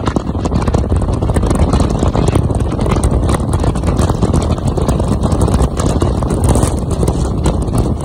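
A car driving at speed: wind buffeting the microphone with a loud, fluttering low rush, mixed with road noise from the tyres.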